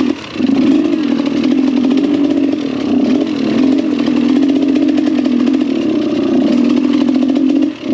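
Trail motorcycle engine running hard at high revs, its pitch wavering up and down as the throttle changes, with a brief drop in level just after the start and again near the end.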